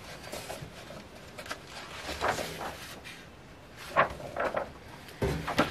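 Paper handling: the pages of a sheet-music book being leafed through, a few short rustles and soft taps about two seconds in and again near the end.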